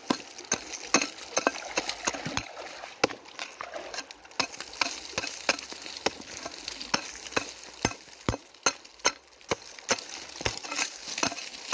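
Small wooden-handled hand hoe chopping and scraping into dry sandy soil, a quick, irregular run of sharp strikes, about two to four a second.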